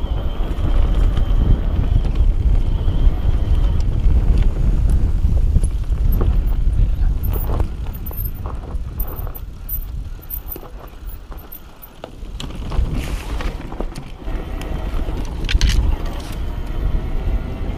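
Electric fat bike ridden along a snowy trail: heavy wind rumble on the camera microphone mixed with tyre and frame noise, and knocks and rattles over bumps. A faint high whine comes in the first few seconds and again near the end. The sound drops briefly about twelve seconds in.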